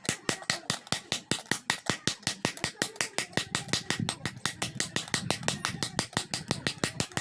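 Hand hammer striking iron in a fast, even rhythm, about five or six blows a second, each blow ringing briefly: a blacksmith hammering out an iron incense burner.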